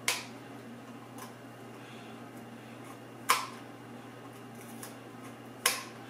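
Scissors snipping through fiberglass cloth stiffened with superglue, three sharp crisp snips a few seconds apart.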